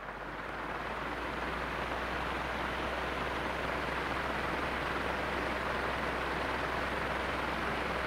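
Electric fan running on its third speed setting: an even rush of air over a steady low motor hum, swelling over the first second as the fan comes up to speed and then holding level.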